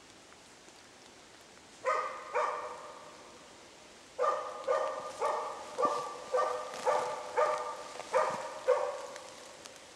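Moose-hunting dog's bay barking (ståndskall), the dog holding a moose cow and calf at bay and barking steadily to mark where they stand. Two barks about two seconds in, then a run of nine barks at roughly two a second, each fading out in an echo.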